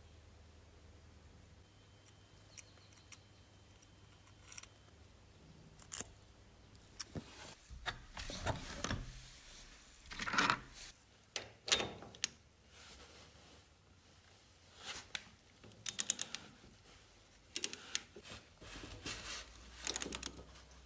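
Metal parts and hand tools being handled: irregular clicks, clinks and short scrapes, sparse at first and busier from about seven seconds in.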